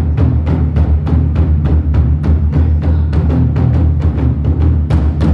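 Large Chinese barrel drum beaten on both heads with sticks by two drummers in a fast, steady rhythm of about four deep strokes a second.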